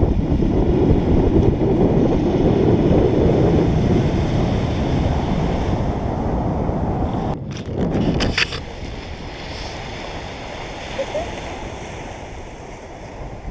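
Wind buffeting the camera microphone over small waves washing onto the beach. A few knocks come about seven to eight seconds in, and after them the wind and surf are quieter.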